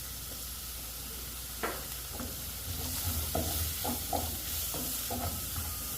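Jerked beef, sausage, onion, peppers and carrot sizzling as they fry in a pan, while a spoon stirs them, knocking and scraping against the pan several times from about two seconds in.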